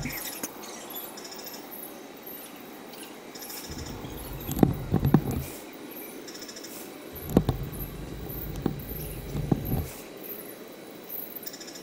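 Woodland ambience: faint high bird chirps repeating throughout, with two stretches of low rumble and several sharp knocks or scuffs, the loudest a few seconds in and again about halfway through.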